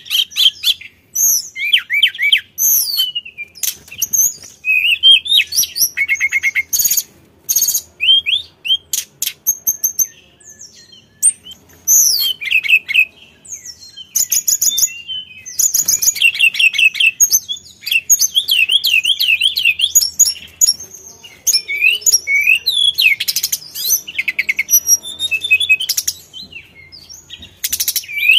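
Male hill blue flycatcher singing a long, varied song of clear whistles and fast warbling trills, phrase after phrase with short gaps between them.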